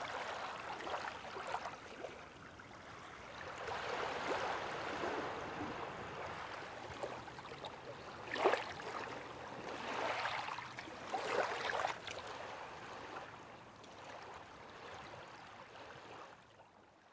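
Small waves lapping onto a sandy beach, the wash swelling and fading, with a few louder laps about halfway through.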